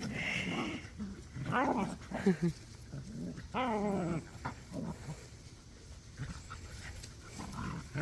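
Dogs play-fighting, with rough growling vocalisations in three short bouts: at the start, about a second and a half in, and about three and a half seconds in.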